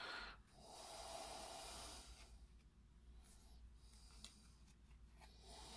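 Near silence with a man's quiet breathing through the nose: one long exhale starting about half a second in and a weaker breath near the end.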